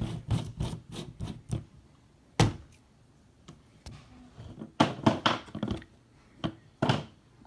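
Handling noises: a run of light taps and knocks, a single louder thunk about two and a half seconds in, then a cluster of knocks around five seconds and one more near the end.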